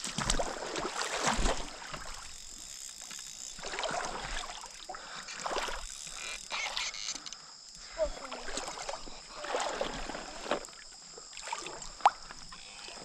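Small hooked sooty grunter splashing at the water's surface in irregular bursts as it is reeled in to the bank.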